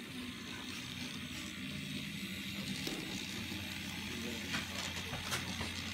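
N scale model diesel locomotive running slowly along the track: a steady low motor hum with faint hiss, and a few light clicks in the second half.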